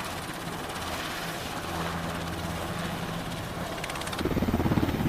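Helicopter flying: rotor chop over steady engine noise, growing louder from about four seconds in.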